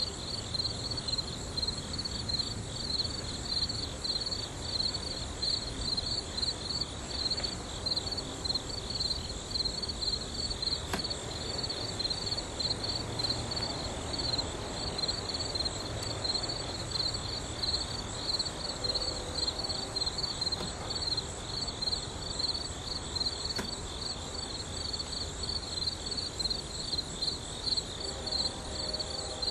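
Crickets chirping in a steady, fast pulsing high trill that runs on without a break.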